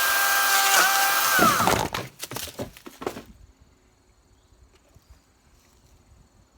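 Oregon 40-volt battery chainsaw's electric motor running at full speed with the chain whirring, then spinning down with falling pitch about a second and a half in as the trigger is let go. Irregular knocks and clatter follow for about a second.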